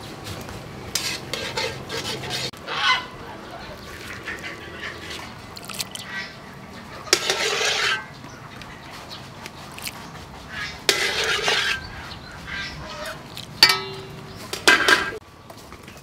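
Domestic fowl calling: scattered short calls, then several louder calls about a second long each, the loudest two near the middle.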